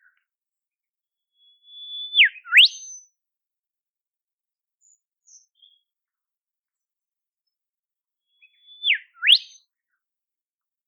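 Olive whistler singing two whistled phrases several seconds apart. Each phrase is a held note that drops sharply in pitch, then sweeps steeply up to a short high note at the end. A few faint, quieter notes come in between.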